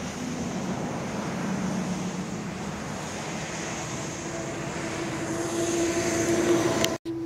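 Freight train rolling past, a steady rumble of boxcar wheels on the rails. About halfway through, a steady humming tone comes in and grows louder, then the sound cuts out for a moment near the end.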